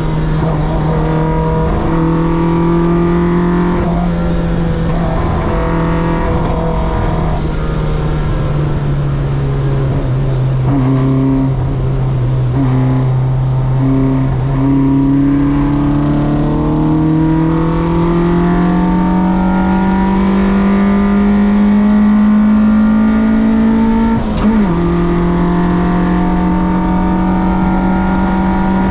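Track car's engine running hard under load, its note sinking slowly and then climbing steadily for several seconds. The pitch drops abruptly at a gear change near the end.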